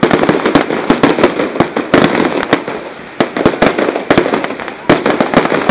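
Fireworks going off in rapid volleys of sharp bangs and crackles, surging in dense clusters every second or two.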